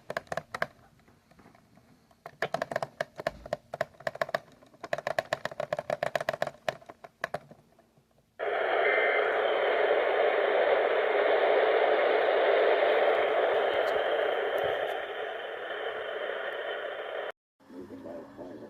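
Emergency Alert System activation received over the radio: a few seconds of rapid, clicking data bursts from the alert header, then about nine seconds of a loud, steady, harsh attention tone that cuts off abruptly near the end.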